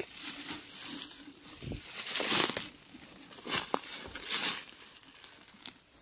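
Dry fallen leaves and withered grass rustling and crackling in several short bursts, the loudest a little after two seconds in.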